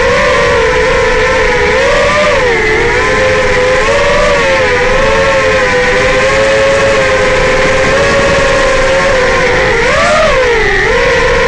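Electric motors and three-blade 5-inch propellers of an FPV racing quadcopter (Racerstar BR2205 2600KV brushless motors) whining and buzzing in flight. The pitch rises and falls with throttle, with a quick swell and dip about ten seconds in.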